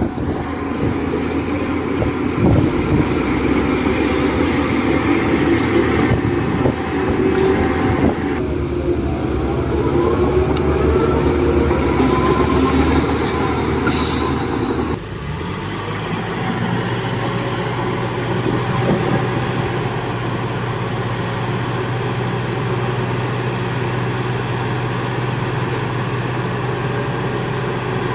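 Heavy diesel machinery running, with a short sharp hiss of air about halfway through. Just after it the sound changes abruptly to a steadier, lower engine note.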